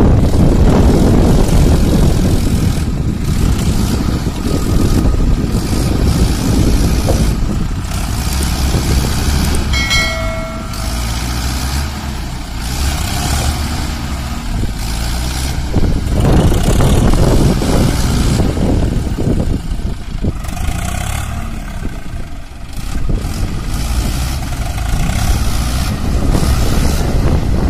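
Diesel tractor engines of a Mahindra Arjun Ultra DI 555 and a Swaraj FE 744 running hard, revving up and easing off several times as they work to free the Mahindra from deep mud. A short high pitched call or horn note cuts through about ten seconds in.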